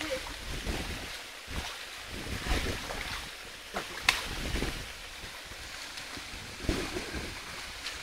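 Wind buffeting the microphone, a fluctuating low rumble over a steady rushing hiss, with a few scattered clicks and knocks.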